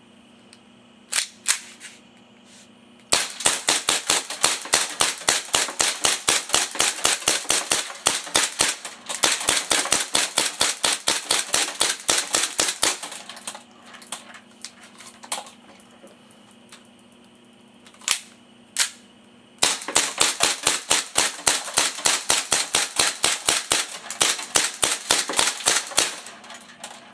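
Toy gun firing rapid, evenly spaced shots in three long strings of several seconds each, with a few single shots in between.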